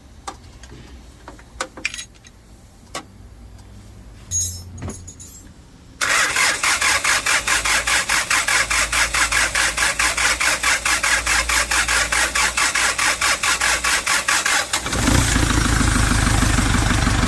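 A few light clicks, then a Hyundai D4CB CRDi four-cylinder diesel is cranked by its starter with a loud, fast, even pulsing for about nine seconds before it catches and settles into a steady idle. The loud cranking noise comes from the newly fitted timing-chain tensioner and oil pump chain, which are not yet oiled.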